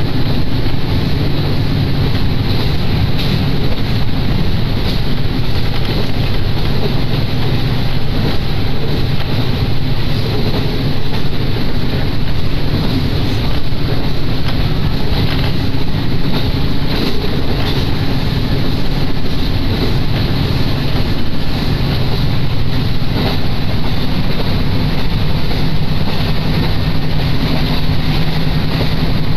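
Diesel railcar running along the line: a steady engine drone with running noise from the wheels and rails, and some wind on the microphone.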